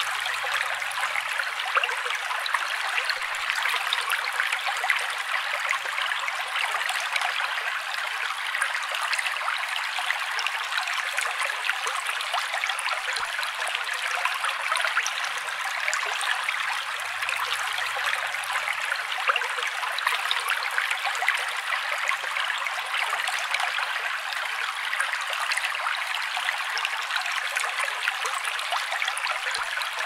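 Steady bubbling, trickling water, a continuous fizz thick with tiny pops.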